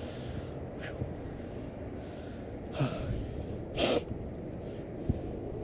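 Two short, sharp breaths or snorts about a second apart, over a steady low rumble of handling noise on a body-worn camera.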